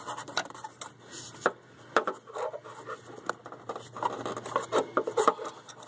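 Scattered clicks, scrapes and rubbing of a hand and screwdriver working among metal engine parts, feeling for the locking pin of the hydraulic timing belt tensioner.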